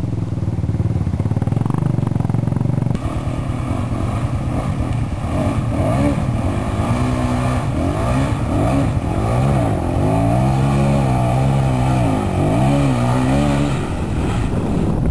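Honda CRF250X dirt bike's single-cylinder four-stroke engine running under the rider's throttle. It runs steadily at first, then from about five seconds in the revs rise and fall again and again.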